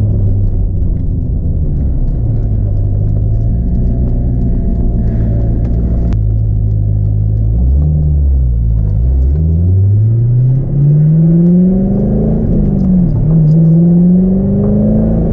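A 2002 Corvette C5's LS1 V8 with a cold air intake, heard from inside the cabin. It runs low and steady at first, then accelerates from about eight seconds in, its note climbing in pitch and dropping back at two upshifts near the end.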